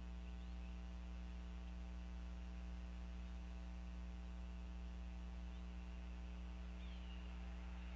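Steady electrical mains hum with its overtones on the nest camera's audio feed, with a few faint, brief high chirps about seven seconds in.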